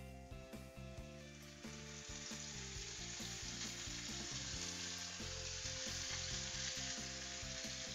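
Wet blended spice paste hitting hot oil in a wok and frying: a steady sizzle that starts about a second and a half in and keeps on.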